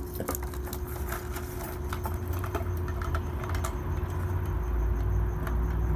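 Irregular light clicks and knocks of small plastic parts from a central-locking kit being handled, over a steady low hum; a low rumble grows louder near the end.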